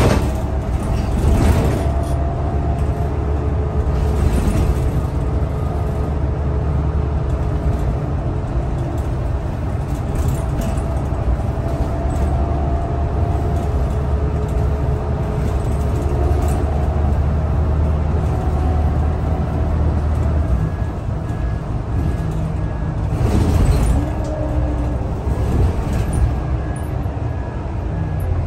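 Scania L94UB city bus under way, heard from inside the passenger cabin: a steady deep engine and driveline rumble with a whining tone that rises and falls as the bus changes speed, and occasional knocks from the body. The deepest rumble eases about 20 seconds in, and a brief louder noise comes a few seconds later.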